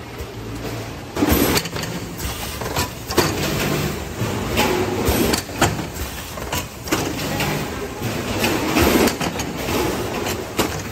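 Vertical form-fill-seal packing machine cycling as it bags frozen chicken pieces: repeated knocks and bursts of noise from its sealing jaws and film drive every second or two, over a low steady hum.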